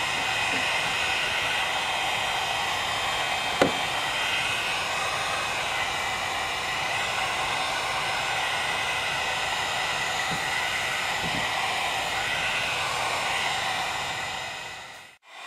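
Handheld electric heat gun blowing steadily, with a single sharp click about a third of the way in. The sound fades out just before the end.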